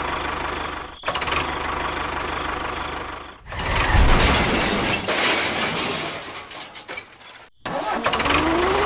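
A small mini-tractor engine running with an even low pulsing, heard in several edited segments that cut abruptly about a second in and again around three and a half seconds. The loudest stretch is just after the second cut.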